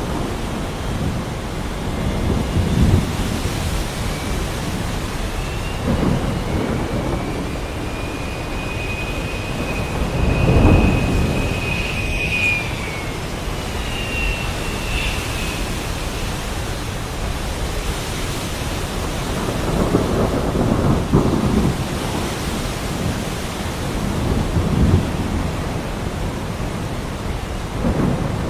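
Heavy rain falling steadily while thunder rumbles low several times, the loudest roll about ten seconds in. A thin, high whistling tone comes and goes for a few seconds in the middle.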